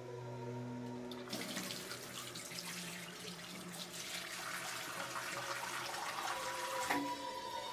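Bathroom sink tap turned on, water running into the basin with a steady splashing hiss from about a second in, then stopping abruptly near the end.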